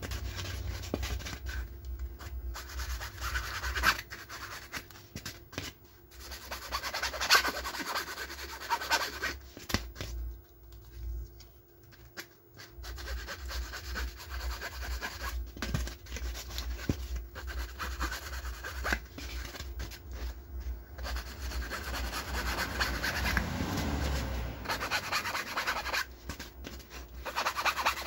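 A cloth rubbing and scratching over the edge of a speaker cone as it spreads Maxo Bond adhesive, in irregular strokes with a quieter pause about ten seconds in.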